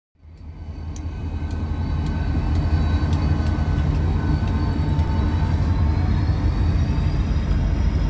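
Diesel freight locomotive passing, fading in over the first couple of seconds to a steady low rumble with a thin whine above it and faint regular clicks about twice a second.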